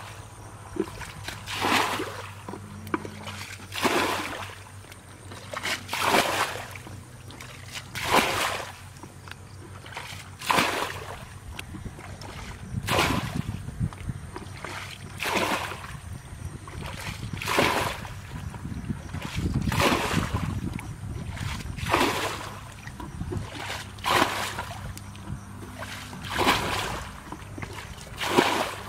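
Muddy ditch water being scooped up with a plastic basin and flung out, a splash about every two seconds, over a low steady hum. The ditch is being bailed out to get at the fish.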